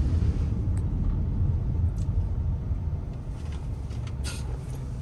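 Steady low rumble of a car's engine and road noise heard from inside the cabin, easing off a little after about three seconds as the car slows for a traffic signal.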